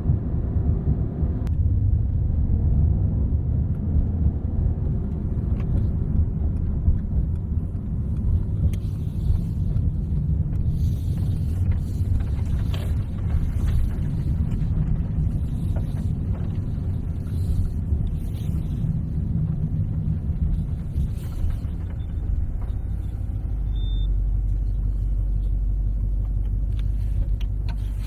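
Mercedes-AMG GT 63's twin-turbo 4.0-litre V8 running as the car is driven, a continuous low rumble. Near the end it settles into a steadier, even low hum.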